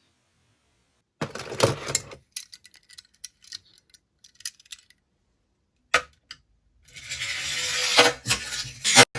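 A die-cast toy car clattering: a short rattling burst, then scattered small metallic clinks and ticks, and a rough rolling scrape for about two seconds near the end. No siren is heard.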